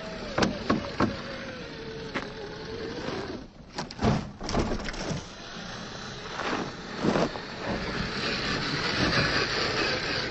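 A 1/10-scale Axial SCX10 III Gladiator RC rock crawler driving over rock. Its Reedy 550 brushed electric motor whines faintly, the pitch wavering for the first few seconds. Sharp clacks and knocks come from the tyres and chassis hitting rock, and a steadier hiss builds near the end.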